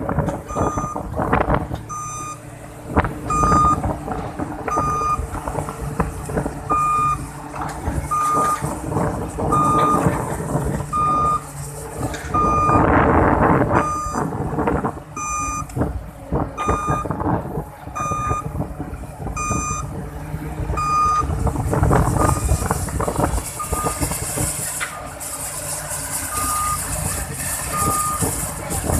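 Kobelco SK330-8 excavator's travel alarm beeping steadily about once a second, over its running engine with clanks and rattles from the machine.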